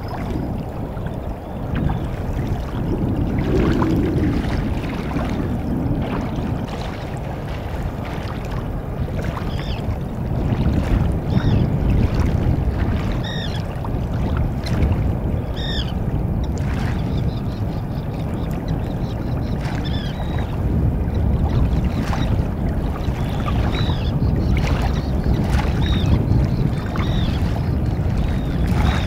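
Steady wind buffeting the microphone over water lapping in the shallows, with short high chirps every second or two from about a third of the way in.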